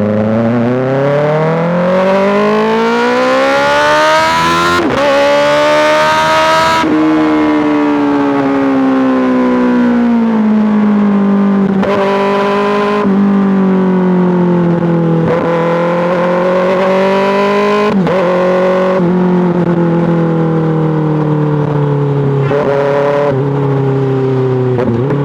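Kawasaki ZX-6R's inline-four engine through an M4 GP slip-on exhaust, accelerating hard with the pitch climbing through an upshift, then falling as the throttle closes. A run of shorter throttle changes and gear shifts follows.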